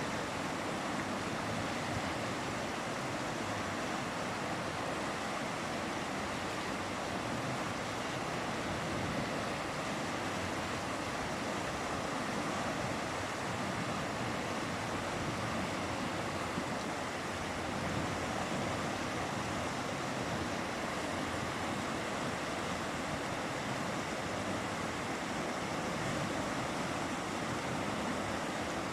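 A mountain river running fast, giving a steady, even rush of water.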